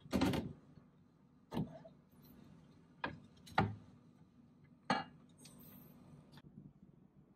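A glass-lidded ceramic casserole dish full of ice being slid onto a fridge shelf and pushed into place: a short scrape, then a few separate knocks and clinks of the dish and lid against the shelf.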